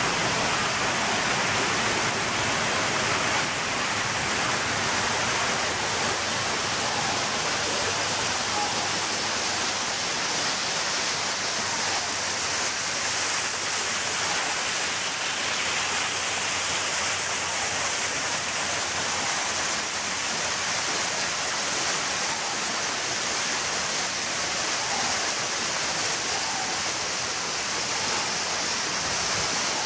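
A steady rushing hiss that keeps an even level throughout.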